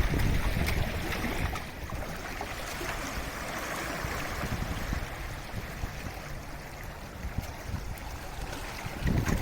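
Sea waves washing against the shore: a loud surge at the start that eases after about a second and a half into a steady, softer wash, then swells again near the end.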